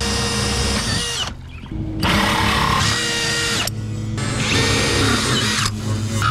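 Handheld power drill running in three bursts of about a second and a half each, stopping and starting abruptly.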